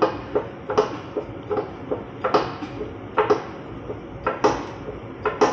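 Sharp metallic clicks and knocks at uneven intervals, about ten in five seconds, as the frame rack's chain pulls on the car's bent front bumper bar to straighten it.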